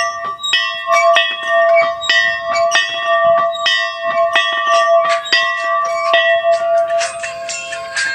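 A victory bell rung over and over, about three strikes a second, each strike sounding on top of the ringing of the last, in celebration of a win.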